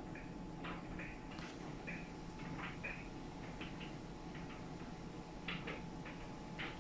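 An LG RC91V9AV3Q heat-pump clothes dryer running quietly: a steady low hum from the machine, with irregular light ticks and taps, scattered every second or so, as the load tumbles in the drum.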